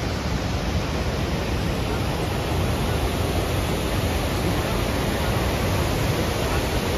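Steady rushing of Pykara Falls, white water pouring over broad rock cascades.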